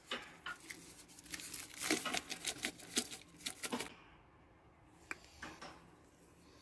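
Hand spice grinders, pepper then salt, being twisted over a bowl of potato wedges: a fast run of crackling clicks for about four seconds, then a couple of faint ticks.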